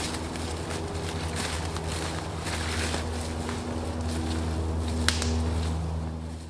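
Footsteps of two hikers rustling and crunching through dry leaf litter over a steady low droning hum, with one sharp crack about five seconds in. The sound fades out at the very end.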